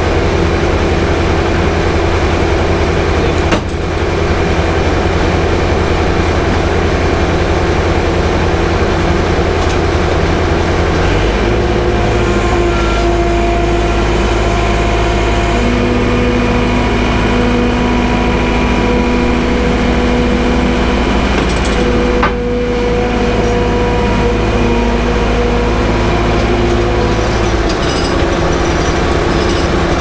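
Sawmill machinery running steadily, with no cutting. About a third of the way in, a deeper engine note with a steady whine joins for around fifteen seconds as a loader raises the log onto the saw carriage.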